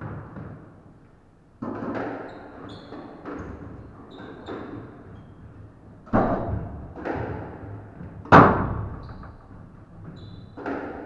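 Squash rally: the ball cracks off rackets and smacks against the walls, each hit echoing around the court, the loudest one a little over eight seconds in. Short high squeaks of shoes on the wooden floor come between the hits.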